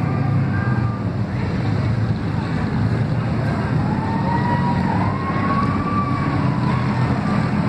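Street stock race car's engine running at low speed as the car rolls slowly along the track, a deep steady rumble. A high wavering tone rises in about four seconds in and holds to the end.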